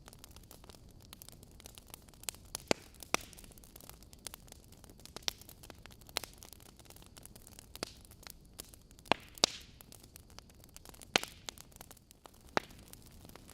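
Wood logs burning in a fireplace: irregular sharp crackles and pops over a faint steady hiss, with a few louder pops.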